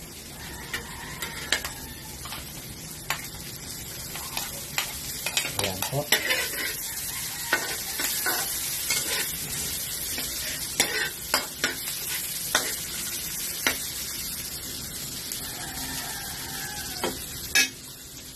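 Minced garlic and chopped onion sizzling as they fry in a metal wok, with a metal spatula stirring, scraping and clacking against the pan many times.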